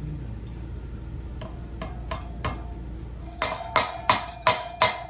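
Hammer tapping a socket on a wheel bearing's outer race to drive the bearing into the hub: about nine sharp metal strikes, four light taps then five harder ones about three a second near the end, each with a short metallic ring.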